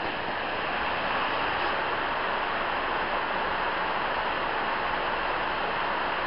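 Heavy rain on a shed roof, a deafening, steady hiss with no let-up.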